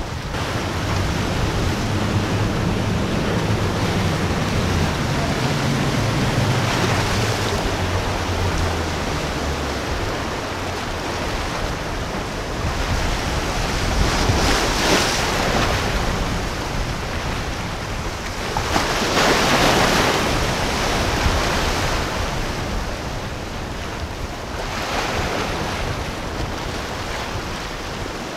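Wind buffeting the microphone over rushing surf, with the low drone of a Freeman 42's four outboard motors for the first eight seconds or so, dropping slightly in pitch as it fades. The rushing noise swells louder twice in the second half.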